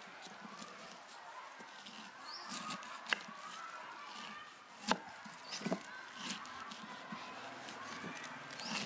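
Kitchen knife cutting through a pineapple and knocking on a wooden board: a few sharp knocks, the loudest about five seconds in. Short bird calls come in the background every few seconds.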